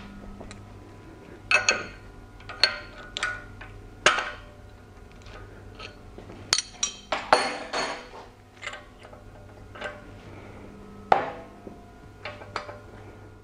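Steel hand tools (spanners and a socket ratchet) clinking and knocking against each other and against a camshaft gear puller on the engine. The sharp strikes come irregularly, the loudest about a second and a half in, around four seconds, from six and a half to eight seconds, and near eleven seconds, several with a short metallic ring.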